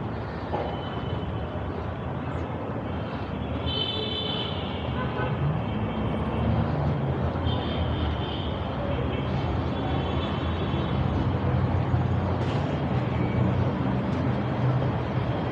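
City street traffic: car engines and tyres from a busy road running steadily, with a couple of brief high-pitched tones about four seconds and eight seconds in.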